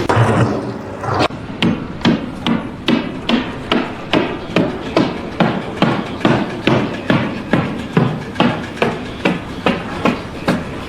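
A hammer striking repeatedly in a steady rhythm, a little over two blows a second.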